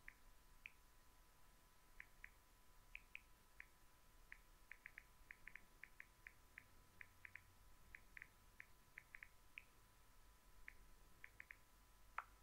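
Near silence: faint room tone with a steady thin whine and many faint, short, irregular ticks, and one slightly louder tick near the end.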